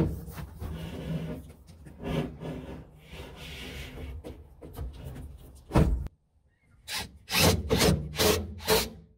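Sheet-metal water heater housing scraping and knocking as it is pushed into its wall opening, with the door frame set against it. After a short pause, a cordless driver runs in four or five short bursts, driving screws into the frame.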